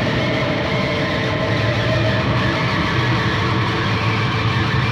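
Electric guitar through distortion and effects, a dense steady droning wash of sound with held low tones and no clear beat.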